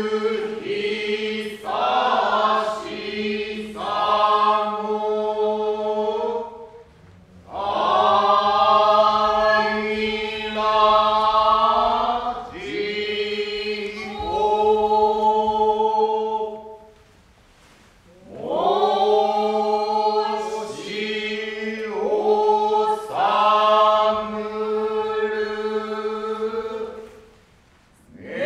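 Kyogen chorus of male and female voices chanting together in unison, a Japanese utai-style chant in long drawn-out phrases over a steady low held note. The chant breaks off briefly about seven seconds in, again around seventeen seconds, and near the end.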